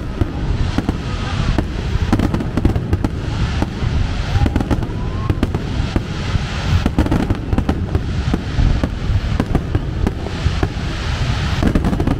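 Fireworks display: a rapid, continuous run of bangs and crackling, with no let-up.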